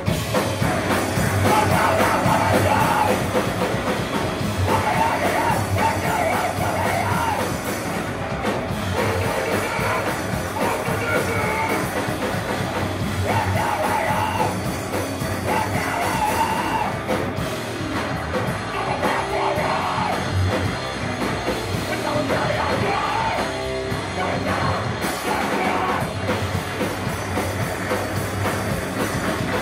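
Live heavy rock band playing a fast, aggressive song: guitars and drums with yelled, screamed vocals.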